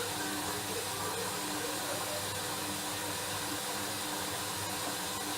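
Hoover washing machine running a rinse, a steady hiss with a low hum underneath.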